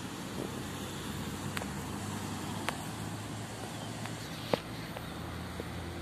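Steady hum of road traffic, with a few sharp clicks, the loudest about four and a half seconds in.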